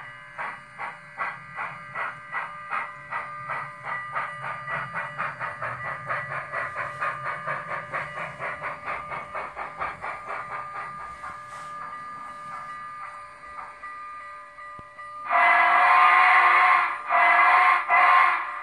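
Model steam locomotive's DCC sound decoder playing steam chuffs through its onboard speaker. The chuffs quicken from about two to about four a second as the locomotive picks up speed, then blur and fade. About fifteen seconds in, a loud steam whistle sounds in three blasts, the last running on.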